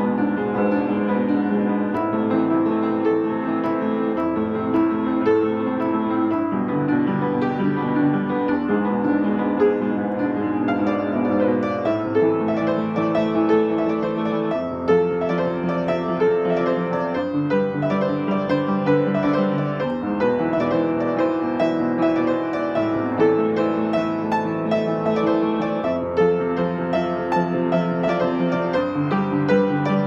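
Solo piano music: a continuous flow of struck chords and melody notes.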